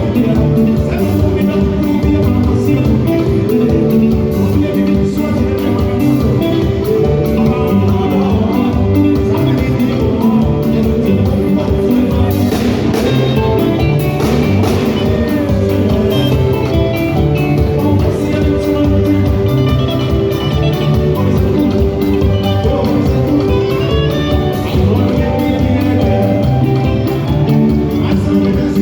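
Background music with a steady beat and guitar, with some singing.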